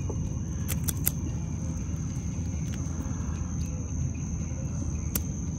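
Wind rumbling on the microphone over open water, with a thin steady high tone underneath. A few sharp clicks from handling the hook and live shrimp, three in the first second or so and one near the end.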